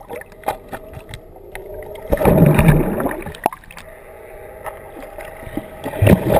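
Water sloshing and gurgling around an underwater camera just below the surface, with scattered small clicks. Two louder bursts of churning water come about two seconds in and again near the end.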